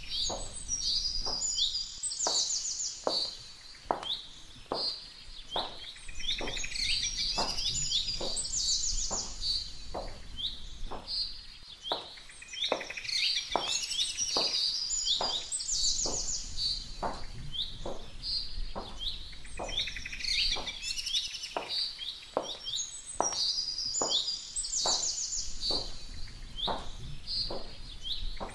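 Chirping birdsong in short bright phrases that come back every five or six seconds, over a steady clicking beat of about two clicks a second: a soundtrack of recorded birdsong and percussion.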